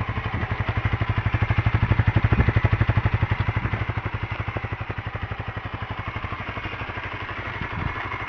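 Honda CBR125R's 125 cc single-cylinder four-stroke engine idling warm, a steady rapid beat of exhaust pulses that grows louder a couple of seconds in and then eases back.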